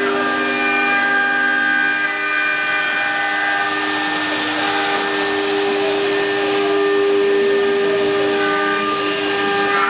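Eight-spindle 4-axis CNC wood router running, its spindles whining in several steady tones as the cutters carve wooden workpieces turning on the rotary axes. A hiss of cutting swells around the middle.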